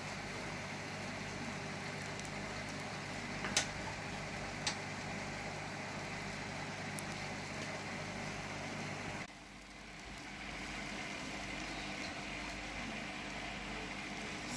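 Steady hum of aquarium air pumps and filters over a bubbling hiss, with two sharp clicks a little over a second apart. About nine seconds in the hum cuts off and a softer hiss without it takes over.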